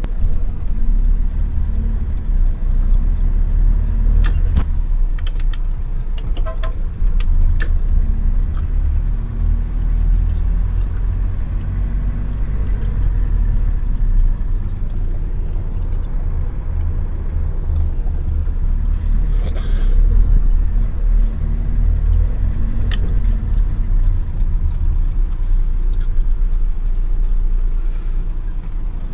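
Steady low rumble of a motor vehicle underway, with scattered clicks and knocks.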